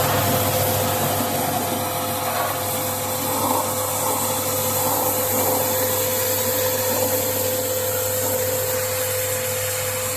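Motor-driven pressure washer running steadily, its water jet hissing as it washes the coil of an air-conditioner outdoor unit, with a steady motor tone under the spray.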